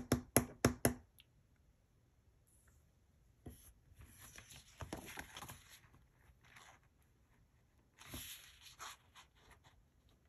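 A sheet of paper stickers handled and pressed onto a planner page, giving soft paper rustling in two stretches. There is a quick run of about five sharp clicks in the first second.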